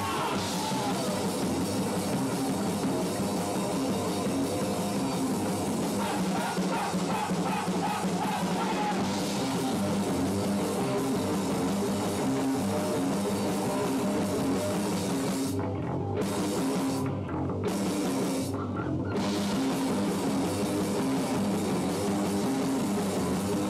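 Rock band playing live, with electric guitar and drum kit. About two-thirds of the way through, the high end cuts out briefly three times while the low end carries on.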